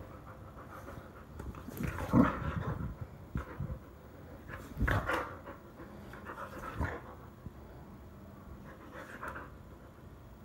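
Boxer dog panting and making breathy mouth noises in short, irregular bursts as it mouths a person's hand in play, the loudest about two seconds in.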